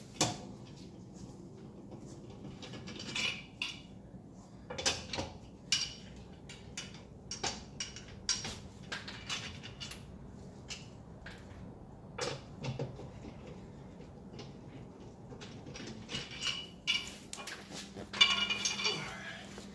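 Scattered metal-on-metal clinks and knocks from hand tools and lug nuts while a car wheel is being taken off, with a short run of quick rattling near the end.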